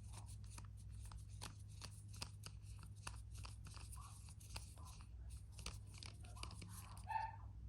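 A fast, uneven run of faint clicks and scrapes from a hand driver and small plastic RC-truck parts being worked loose during disassembly, over a steady low hum.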